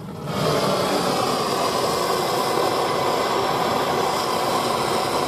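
Steady rushing hiss of a heating tool playing on the cylinder of a seized Piaggio Ciao M1M moped engine, warming it so the cylinder expands and frees the stuck piston. It starts a moment in and holds level.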